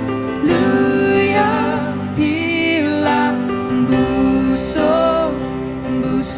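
Live worship band playing, acoustic guitar and held chords, with sung or hummed melody lines between the lyrics.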